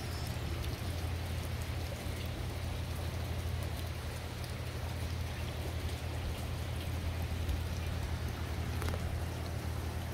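Steady trickling and splashing of water around a landscaped garden pond, with a low, even rumble underneath.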